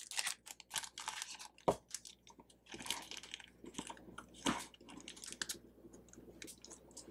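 Clear plastic packaging sleeve crinkling as a stack of small paper tabs is worked back into it, a run of irregular soft crackles and clicks with a few sharper ones.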